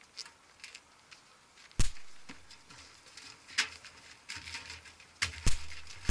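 A scuffle: a handful of sharp hits and thuds of bodies and blows, a second or two apart, with rustling and scraping between them.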